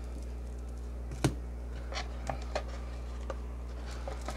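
Hands handling the contents of a trading-card box, making a few light clicks and taps, the sharpest about a second in, over a steady low hum.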